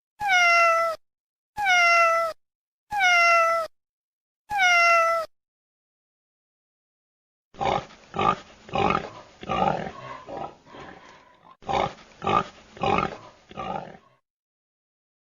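Domestic cat meowing four times, each meow under a second and falling slightly in pitch. After a pause, a different animal gives two runs of short, rough calls.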